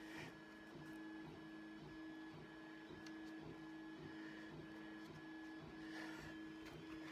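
Faint steady machine hum with a higher tone pulsing on and off at an even rate, a few times a second.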